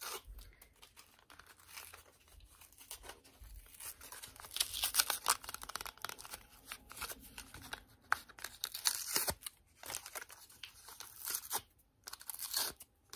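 Thin plastic wrapping being torn open and crinkled by hand, an irregular crackling that comes in spurts, loudest about four to five seconds in.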